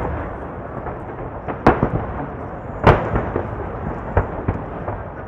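Aerial fireworks going off in a dense display: two loud booms about one and a half and three seconds in, several smaller bangs after them, all over a continuous rumble of distant bursts.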